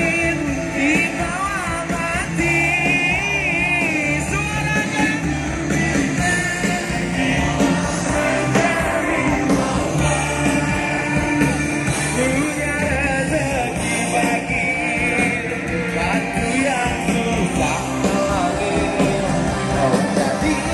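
Live pop band playing through outdoor PA loudspeakers, a singer's voice over the band's accompaniment, heard from within the crowd.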